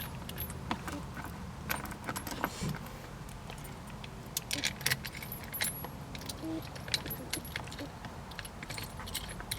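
Light metallic clinks and rattles at irregular intervals from small steel bolts, washers and lock washers being handled and fitted by hand.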